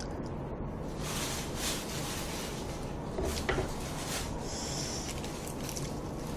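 Faint handling noises as a leaf wrap of jokbal is folded by hand, with a few soft clicks and rustles over a low steady hum; a slightly louder rustle about three and a half seconds in.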